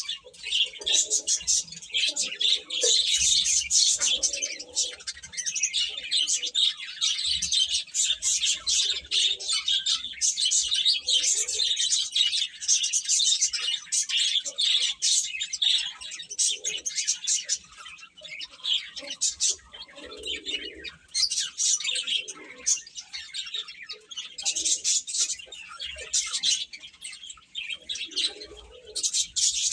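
A group of baby chicks peeping continuously, many rapid high-pitched cheeps overlapping one another.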